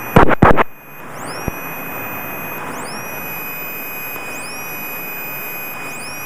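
A few sharp clicks as a radio transmission ends, then a steady hiss of Cessna 172E cockpit noise in flight, with a faint steady high tone.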